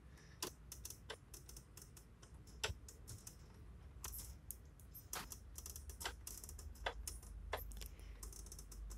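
Faint, irregular clicks and scratchy ticks from the tuning wheel of a Sharp GF-560Z radio cassette player being turned by hand, a dozen or so spread unevenly over several seconds.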